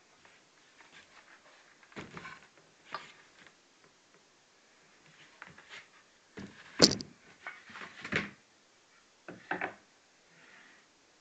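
Scattered wooden knocks and clatter as a homemade wooden belt-sander stand is turned over and set down on a bench, with one sharp loud knock about two-thirds of the way through and a quick double knock near the end.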